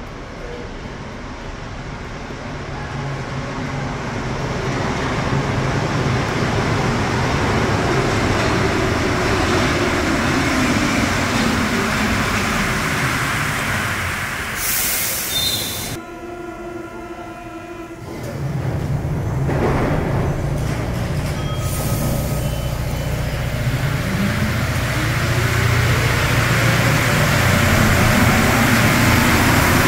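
Rubber-tyred MP59 Paris Métro train running into the station and braking, its pitch falling. About fourteen seconds in a short hiss is followed by a two-second door-closing buzzer, then the train pulls away with a rising motor whine.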